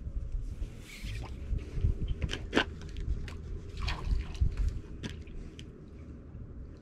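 Magnet-fishing rope being handled and pulled in hand over hand: scattered scrapes, rustles and short clicks over a low steady rumble.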